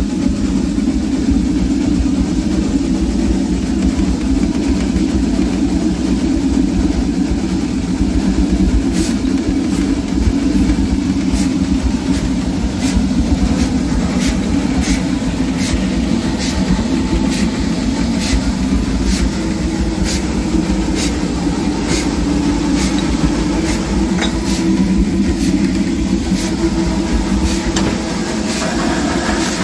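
Steady loud running noise inside the cab of a narrow-gauge steam locomotive, joined about nine seconds in by sharp regular beats, about one and a half a second.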